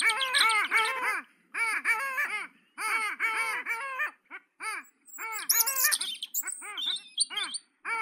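Birds calling: quick runs of short, arched, rise-and-fall notes, four or five to a burst with brief gaps between bursts, along with thin, very high chirps from another bird.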